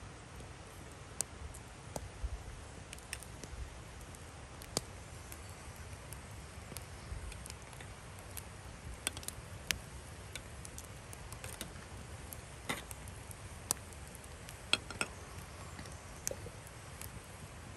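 Scattered light clicks and taps from hands, a knife and a clay stew pot: potato cut into the pot and its clay lid set on near the end. A faint low rumble runs underneath.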